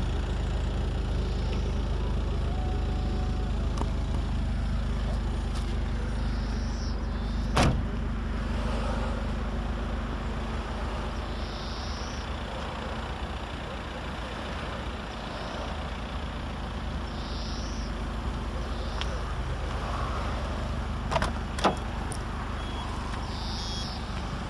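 Peugeot 206 engine idling steadily, a low even hum. A single sharp knock comes about a third of the way in, and two quick clicks come near the end.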